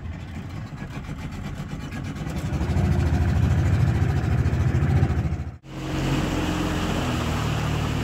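Outboard motor of a small aluminium dinghy running and throttling up about two seconds in as the boat gets under way. The sound cuts out sharply for a moment about five and a half seconds in, then the motor runs on steadily.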